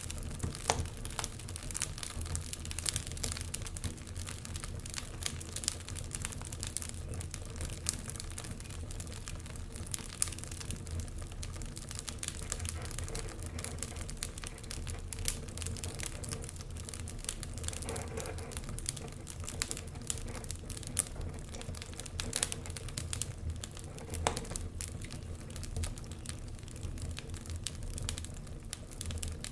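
Wood fire in a fireplace crackling, with many irregular sharp pops and snaps over a low, steady rumble of the flames.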